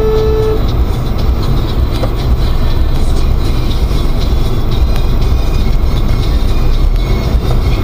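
Steady low rumble of a car's engine and cabin, recorded by a dashboard camera while the car waits in traffic. A held, steady tone cuts off about half a second in.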